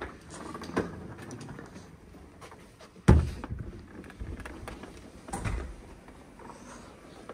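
A hotel door shutting with a heavy thump about three seconds in, then a softer thump about two seconds later, amid light knocks and handling noise.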